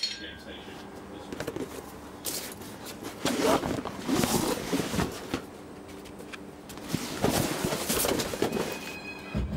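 Voices from a podcast playing in the background, with scattered knocks and clatter from items being handled.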